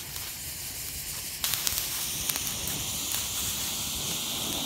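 Homemade potassium nitrate and sugar rocket motor burning with a steady hiss. About a second and a half in it jumps louder, with scattered crackles.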